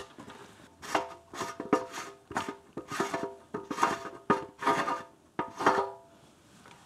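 Filler cap being twisted and worked on a motorcycle's bare-metal fuel tank: a run of sharp metallic clicks, about two a second, each leaving the tank ringing briefly at the same few pitches.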